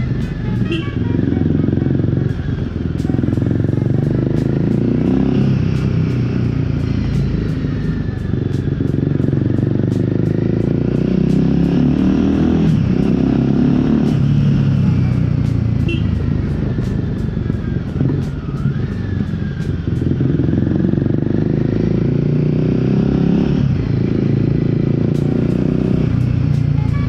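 Royal Enfield Guerrilla 450's single-cylinder engine running through an aftermarket Black Widow exhaust on a ride. Its pitch climbs under throttle and falls away again and again as it accelerates and shifts gear, with sharp drops a few times.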